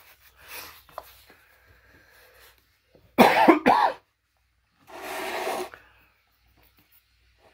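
A man coughing twice in quick succession into his elbow about three seconds in, followed about a second later by a further breathy burst.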